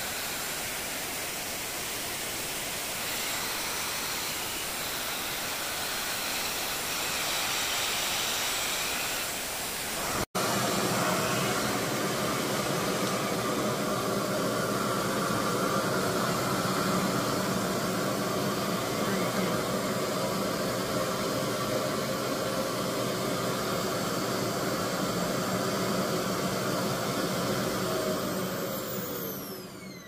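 Rev-air vacuum blow dryer running steadily, a rush of air with a motor whine over it. It breaks off for an instant about ten seconds in, and near the end its pitch falls and it quietens as it winds down.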